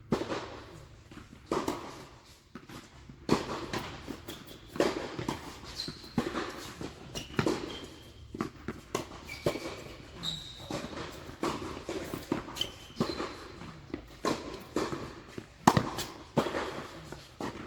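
Tennis rally: sharp racket strikes and ball bounces about every second or so, with short high squeaks of tennis shoes on the court between them.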